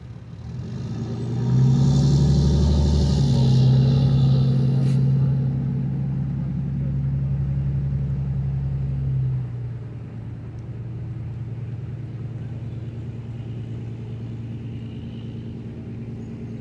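An engine running with a low, steady hum. It swells up over the first second or so, holds loud for about eight seconds, then drops suddenly to a quieter steady hum for the rest.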